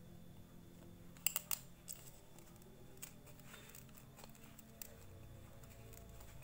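Light plastic clicks and taps as a perforated plastic pipe filter and its round plastic cap are handled and pressed together, with a quick cluster of sharp clicks a little over a second in and a few single clicks after.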